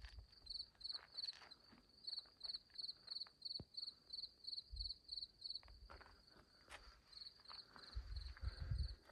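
A cricket chirping steadily, about three short high chirps a second. Low rumbling thumps near the end are louder than the chirps.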